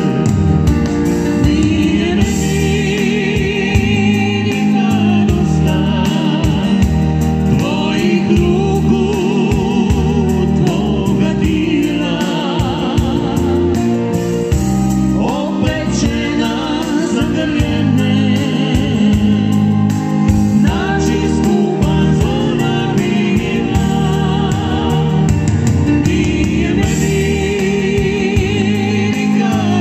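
Music from a slow folk-pop song: a wavering vibrato melody over a steady bass-and-chord accompaniment.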